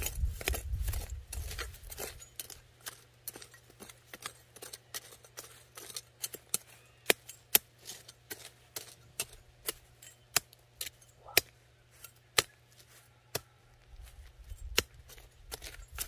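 Small metal hand hoe digging into dry, stony soil: a run of sharp, irregular clicks and taps as the blade strikes dirt and stones, a couple each second, with scraping and rustling at the start and again near the end.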